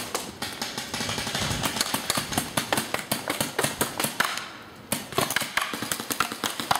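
Paintball markers firing rapid volleys of shots, a fast run of sharp cracks lasting about four seconds, a short pause, then another rapid volley.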